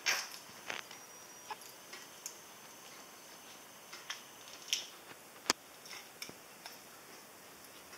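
Handling noise from a small handmade mini-album keychain: scattered soft rustles and light clicks of the paper-covered album and its metal chain and ring, with one sharp click about five and a half seconds in.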